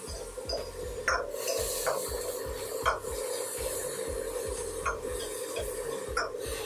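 Metal spatula scraping around the inside of a steel wok while stir-frying bacon and onion, with a few sharp clinks where it knocks against the pan.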